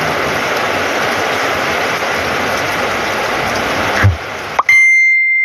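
Heavy rain pouring steadily for about four seconds, then cutting off suddenly. A loud, steady high-pitched beep-like tone follows near the end.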